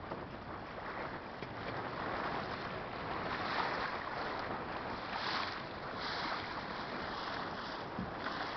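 Steady rush of water along a sailboat's hull as it sails through choppy water, mixed with wind buffeting the microphone.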